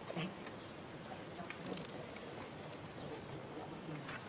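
Outdoor ambience of faint insects and other small animal sounds, with a brief high chirp a little under two seconds in.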